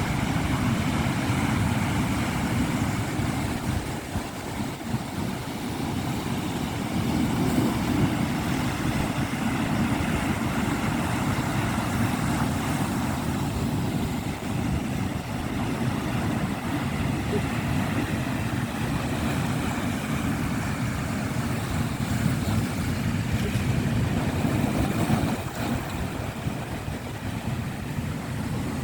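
Sea waves washing steadily onto the shore, with wind rumbling on the microphone.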